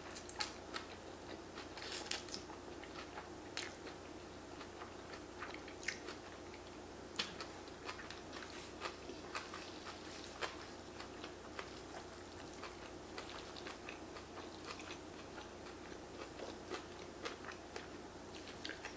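A person chewing a mouthful of noodles with steak and greens close to the microphone, with wet mouth clicks and smacks scattered throughout and a faint steady hum underneath.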